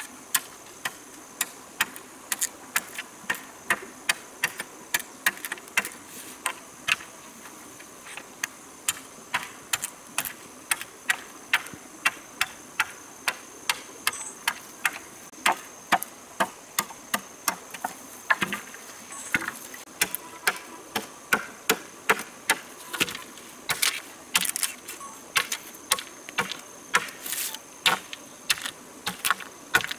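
A blade chopping into a split bamboo strip in short, sharp knocks, about two to three a second and fairly regular. A steady high insect drone runs underneath.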